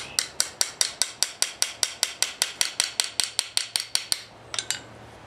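Small hammer tapping rapidly at the handle end of a puukko knife, about five light, ringing blows a second, some twenty in a row, then two more after a short pause.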